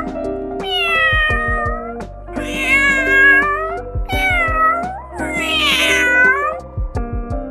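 Domestic cat meowing, about four long drawn-out meows, one of them short, over background music with a steady beat.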